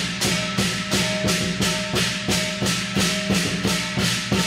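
Background music with a fast, steady percussion beat, about four strikes a second, over sustained tones.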